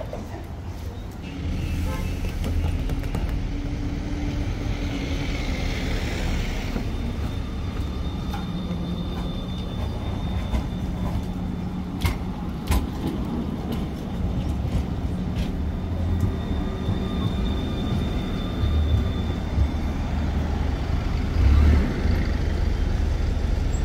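Low running hum of Croydon trams at street-level stops, mixed with city traffic and buses. A few sharp clicks come about halfway through.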